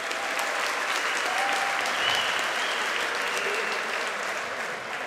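Large arena crowd applauding, easing off slightly near the end.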